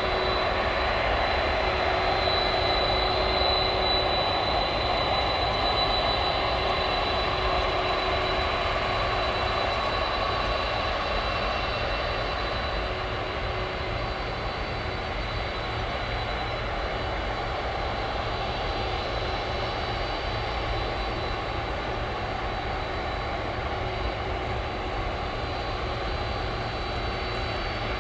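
Jet engines of a taxiing Boeing 747-400 freighter running at taxi power: a steady rumble with a high, thin whine on top. It is a little louder at first and eases slightly after about ten seconds as the jet turns side-on.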